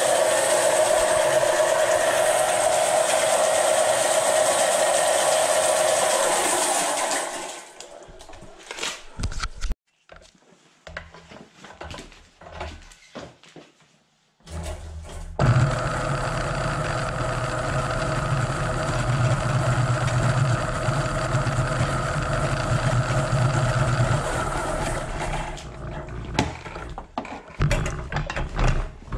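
Electric Eel Model C sectional drain-cleaning machine running, its motor spinning the cable into a clogged kitchen and laundry drain line. It stops after about seven seconds, leaving a quiet spell with a few scattered clicks and knocks, then starts up again about halfway through and runs steadily with a low hum, stopping and starting a few times near the end.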